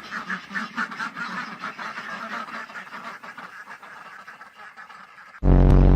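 A rapid run of animal calls that slowly grows fainter, then a loud, short, deep blast just before the end.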